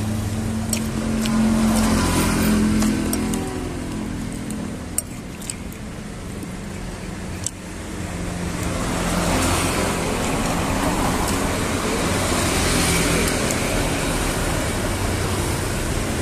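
Road traffic: a vehicle engine running low and steady through the first half, then a broader rush of passing traffic from about halfway. A few light clicks of a metal spoon against a china plate sound in the first half.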